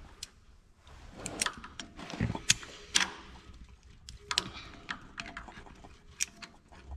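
Irregular light metallic clicks and knocks as hand tools are handled, with a pair of vise grips being fitted and adjusted onto a small eyelet.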